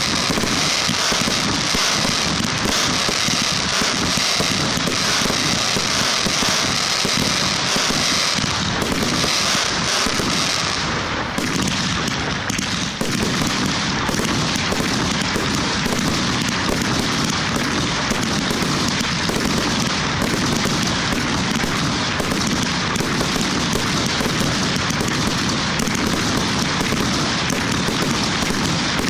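Large professional fireworks display firing a dense, continuous barrage of overlapping bursts. A steady high hiss runs over the bangs and thins about eleven seconds in.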